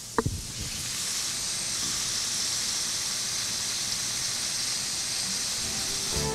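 Meat fillet sizzling in oil and orange juice in an aluminium frying pan: a steady hiss of frying, over a low flame. A short knock comes about a quarter second in, and the sizzle grows a little louder over the first second.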